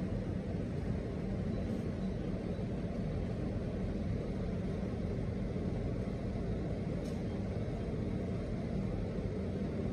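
Steady low rumble heard from inside a car cabin, typical of the car's engine idling.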